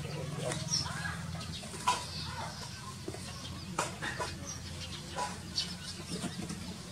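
A chicken flapping its wings and clucking as a young monkey chases it, with a few sharp clicks in between.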